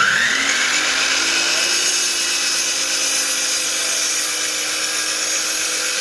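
DeWalt sliding miter saw's motor and blade switched on, winding up to full speed with a rising whine in the first moment. It then runs steadily as the spinning blade is lowered into a small clamped piece of wood.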